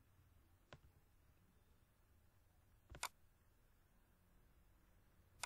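Three single computer mouse clicks against near silence, the last near the end the loudest.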